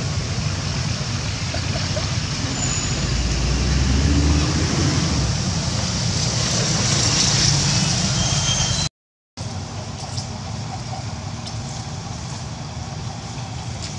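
Steady outdoor background noise with a low rumble. It breaks off for a moment about nine seconds in, then carries on a little quieter.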